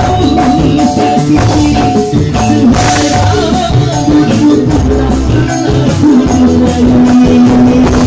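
A band playing a song with a singer's voice over electric guitars, bass and drums; the singer holds one long note near the end.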